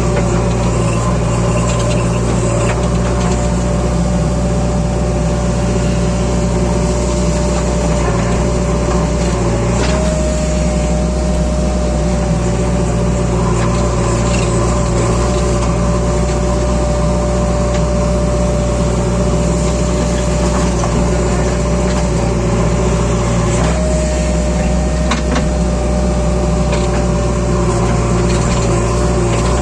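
JCB 3DX backhoe loader's diesel engine running steadily under work, with a steady whine over it that rises briefly about ten seconds in and again near the end.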